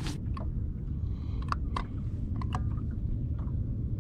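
Light clicks and taps of a fishing rod and reel being handled aboard a bass boat, about eight sharp ticks spread unevenly, over a steady low rumble.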